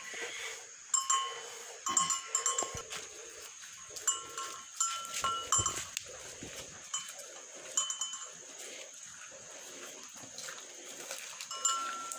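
Cow being milked by hand: repeated squirts of milk from the hand strokes, with a cowbell clinking now and then as the cow moves.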